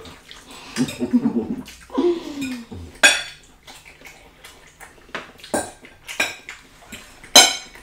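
Metal cutlery clinking and scraping on plates and glass serving dishes during a meal: a few sharp clinks spread through, the loudest near the end. Brief low voice sounds in the first few seconds.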